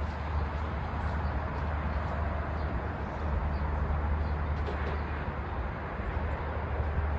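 Steady low rumble and hiss of outdoor background noise with no distinct event.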